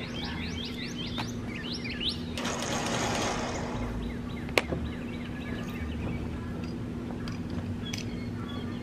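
Small birds chirping for the first couple of seconds, then a brief rush of noise and a single sharp knock about four and a half seconds in, over a steady low hum.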